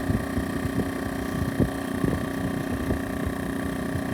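A small boat motor running steadily, with wind rumbling on the microphone and a few soft knocks.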